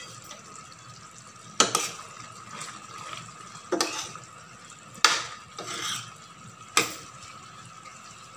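A cooking spoon stirring pork and long green chilies through a thick coconut-milk sauce in a stainless steel pan, knocking against the pan four times, with a faint steady hiss from the simmering sauce between.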